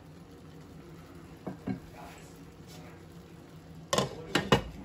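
A wooden spoon knocks softly twice against cookware, then a glass pot lid is set down on the metal pot with a quick run of sharp clinks and clatters near the end.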